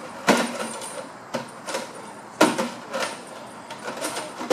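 Plastic pipe feeder knocking and scraping against a rock wall as a giraffe works it with its head and tongue, in irregular clacks about half a second to a second apart.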